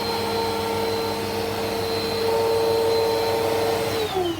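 Bissell PowerForce Helix 1700 upright vacuum running with a steady motor whine. About four seconds in it is switched off and its pitch starts falling as the motor spins down.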